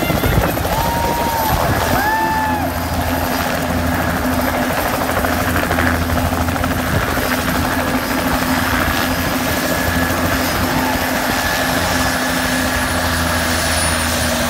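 Bell 206-type light turbine helicopter touching down and then running on the ground with its two-blade rotor still turning: a steady rotor beat with a turbine whine over it. The high whine drops slightly in pitch over the last few seconds.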